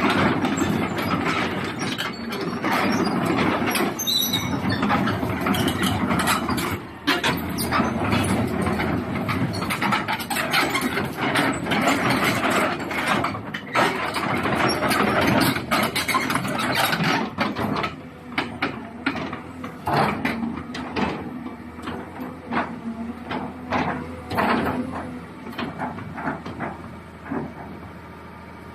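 Caterpillar 320 excavator's C7.1 six-cylinder diesel running under load, with many sharp metallic knocks and clanks from the machine working. After about 18 seconds the knocks come more sparsely, and near the end the engine settles to a quieter, steady idle.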